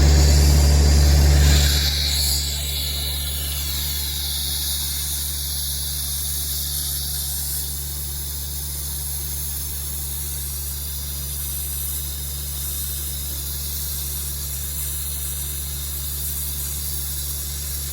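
Air compressor engine running with a steady low hum under a hiss of compressed air blowing a pull rope through 4-inch conduit. The sound drops in level about two seconds in, then runs on evenly.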